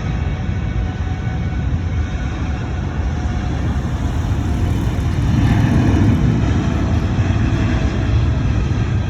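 Jet airliner engines rumbling as the plane passes, loudest about six seconds in, with faint steady whining tones over the rumble.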